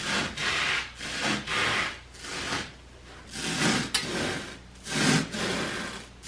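Knife sawing back and forth through a 3-inch foam mattress pad, a scratchy stroke about twice a second.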